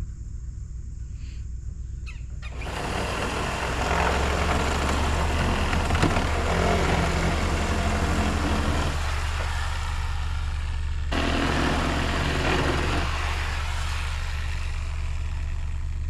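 Corded reciprocating saw (Sawzall) starting up about three seconds in and running in bursts as it cuts wooden framing, with a short pause about nine seconds in and easing off about thirteen seconds in. Under it a pickup truck's engine runs steadily to power its onboard generator, its hum growing stronger just after the saw starts.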